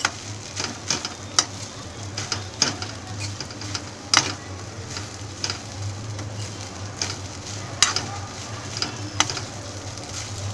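Spatula stirring and scraping vegetable fried rice around a metal wok, with irregular sharp clinks of the spatula against the pan over a light sizzle of frying.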